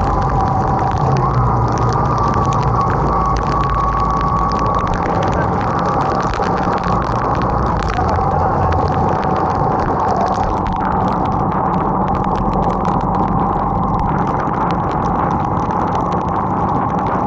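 Bajaj motorcycle running steadily at road speed in rain, with a dense rush of wind and rain noise over the microphone and a patter of fine ticks from raindrops.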